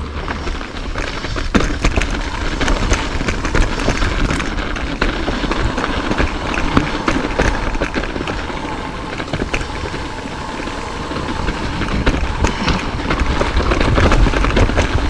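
Mountain bike riding down a rough dirt trail: tyres on the dirt, with the bike rattling and clattering over bumps in many sharp knocks, and low wind rumble on the microphone.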